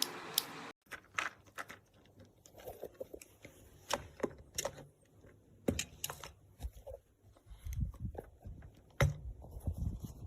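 Irregular clicks, taps and light knocks of small hard plastic parts being handled, such as keyboard switches and their packaging, with a few duller thumps near the end.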